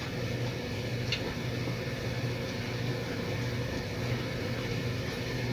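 Steady low machine hum with a fainter higher tone held under it, and a light click about a second in.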